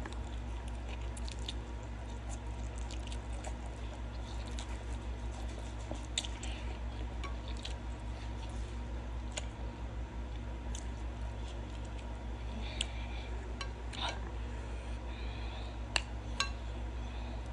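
Close-up eating sounds: wet chewing and slurping of spicy noodles, with scattered mouth smacks and a few sharper clicks of a fork against a glass bowl, over a steady low hum.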